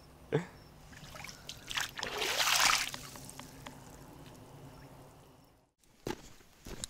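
Water trickling and splashing at the water's edge, swelling to a louder rush about two to three seconds in and then fading away.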